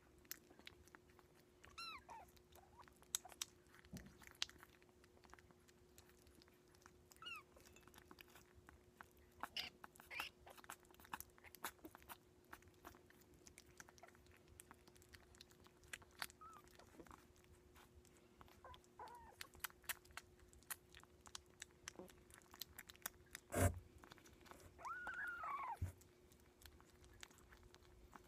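Kittens eating wet food from ceramic dishes: faint, rapid smacking and chewing clicks throughout, with a few short kitten mews scattered through and one longer rising-and-falling mew near the end. A single sharp knock, the loudest sound, comes a little after two-thirds of the way in.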